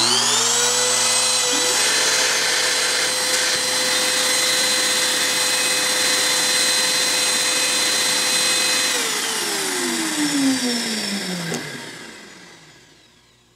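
Trim router and dust-collection vacuum switched on together through an automatic vacuum switch. The router spins up to a high steady whine, and the vacuum motor comes up to speed a moment later. Both run steadily, then are switched off about nine seconds in and wind down, fading away over the last few seconds.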